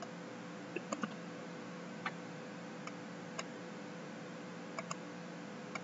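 Computer mouse clicking now and then, about eight faint sharp clicks, some in quick pairs, while a list in a software dialog is scrolled and an item picked. A faint steady hum lies underneath.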